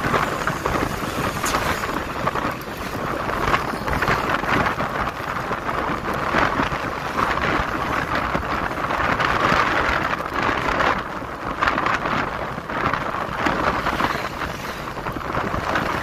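Wind buffeting the microphone of a camera on a moving motorcycle, over steady road and traffic noise.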